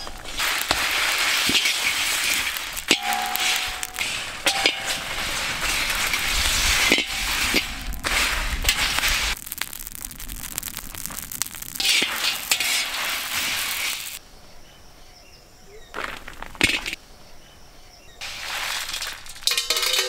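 Whole dried spices (red chillies, coriander seeds, cardamom, cloves, cinnamon) dry-roasting in a large kadai, stirred with a perforated metal skimmer: a dense dry crackling rustle with scraping and light metal clinks. It drops away twice after about fourteen seconds.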